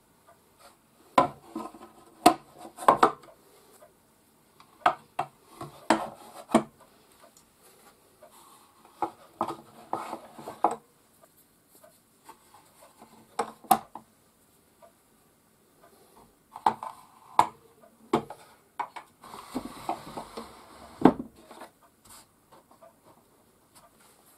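Small metal tools clinking and knocking against wood as they are laid and shuffled into a shallow wooden drawer, in short clusters every few seconds. Near the end the drawer slides shut on its runners, with a rubbing sound and a wooden knock.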